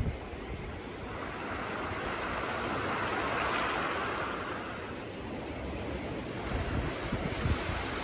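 Small waves washing in on a pebble shore, the surf swelling around the middle and easing off again. Low rumbles of wind buffeting the microphone come at the start and again near the end.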